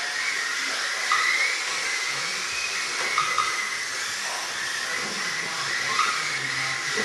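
Small electric motors of 1/28-scale Mini-Z and Xmod RC cars racing, heard as a steady high hiss with short rising whines now and then as cars speed up.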